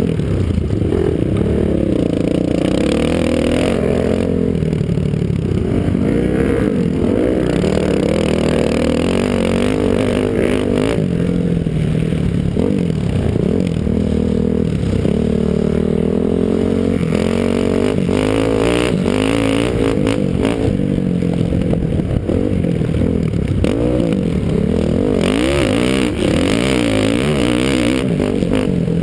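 Honda dirt bike engine running hard, heard on board, its pitch rising and falling constantly as the rider accelerates, shifts and backs off through the course.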